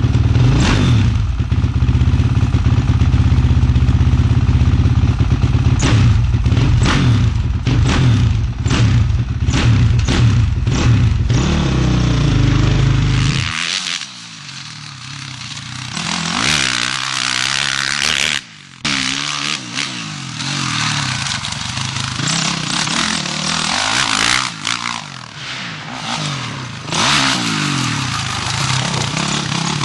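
Motocross dirt bike engine run close up for about the first 13 seconds. After a sudden change it is heard riding on a track, its engine revving up and falling back again and again.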